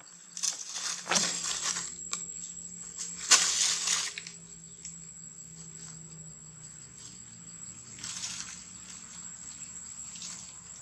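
Dry leaf litter crackling and rustling as young macaques scramble over it, with two loud bursts in the first four seconds and fainter ones later. A steady high-pitched insect whine runs beneath.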